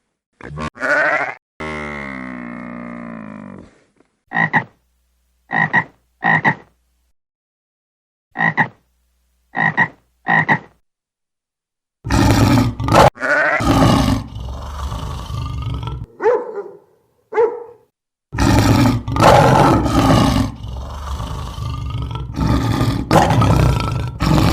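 A run of animal calls. It opens with a long pitched call, then come six short calls about a second or more apart, then louder, rougher calls from about halfway through to the end.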